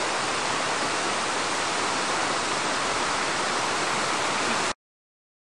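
Steady rushing of a mountain waterfall, an even hiss of falling water, cutting off suddenly near the end.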